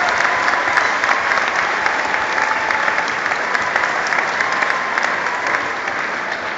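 Large audience applauding: dense, steady clapping that tapers off slowly.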